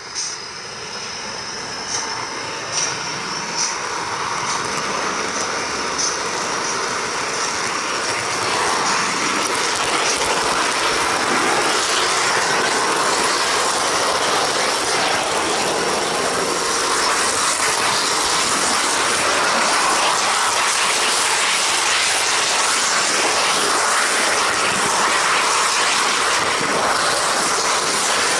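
Model train carrying an onboard camera, rolling along the layout's track: a steady rolling rattle that grows louder over the first eight seconds and then holds, with a few sharp clicks in the first six seconds.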